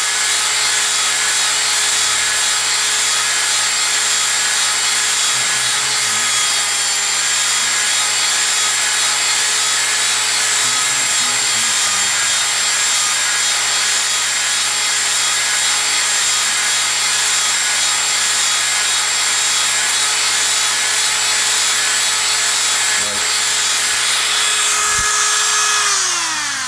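Dremel Moto-Tool rotary tool with a cutoff wheel running at a steady high whine, cutting down the plastic tip of an LED. Near the end it is switched off and the whine falls in pitch as it spins down.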